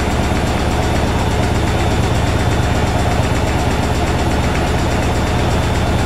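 Washing machine in its spin cycle, the drum spinning at speed with a steady, unchanging low hum.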